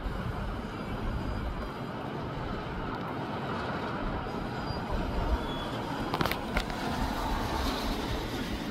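Gusty south-southeasterly wind rushing through tall palm trees and buffeting the microphone with a low, uneven rumble. A few sharp clicks come about two-thirds of the way through.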